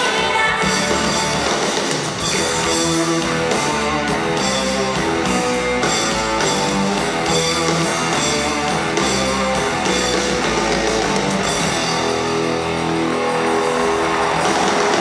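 Loud live concert music over a PA: an instrumental passage with guitar over a steady drum beat, with no singing.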